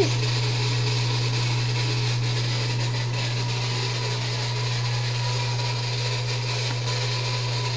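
A steady low drone with a faint, even higher tone above it, unchanging throughout.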